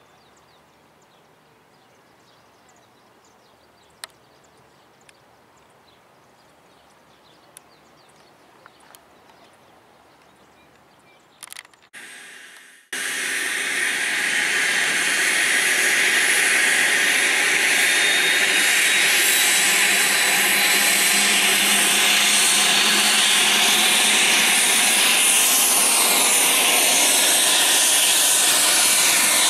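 Quiet with a few faint clicks for about twelve seconds, then the Airbus H145 helicopter's turbine engine starts suddenly. It becomes a loud, steady rushing hiss with a faint rising whine and grows a little louder as it spools up, while the rotor is still at rest.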